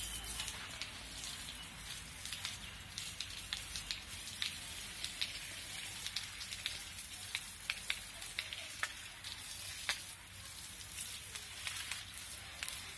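Water spray hitting the leaves of garden trees: a steady hiss with an irregular crackling patter of drops striking the foliage.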